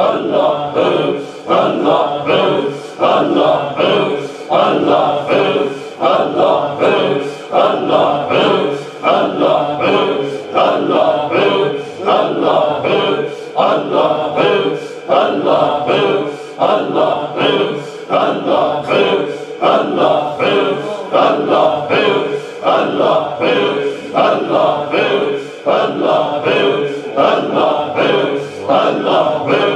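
A group of men chanting dhikr in unison, repeating 'Allah' in a steady rhythm about once a second.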